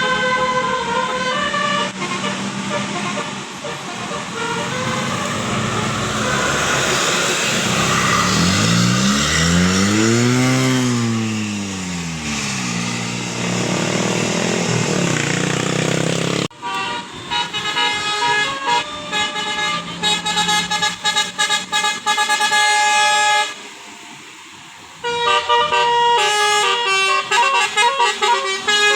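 Telolet basuri musical bus horns playing a multi-note tune. Around the middle, a single tone swoops up and back down in pitch. After an abrupt change about halfway, a fast run of short, chopped horn notes follows, with a brief drop near the end.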